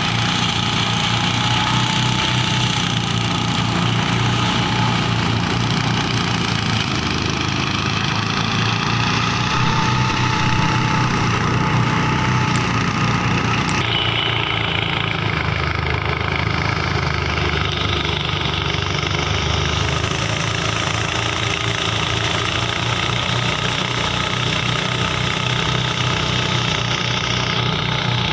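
New diesel engine on a rice threshing machine running steadily under test; its sound shifts about halfway through and then runs on evenly.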